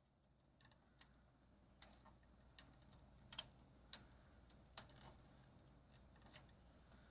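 Faint, irregular light clicks and taps, roughly one a second, with a few louder ones in the middle: small hardware being handled.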